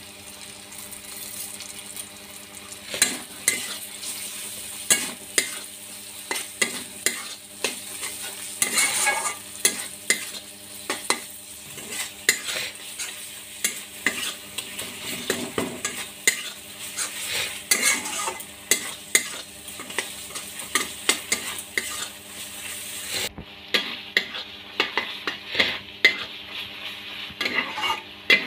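Metal spatula stirring and scraping onion-tomato masala around a kadai, with frequent sharp clicks against the pan over a steady sizzle of frying. The masala is at the stage where the tomato has broken down and the oil separates. A faint steady hum runs underneath.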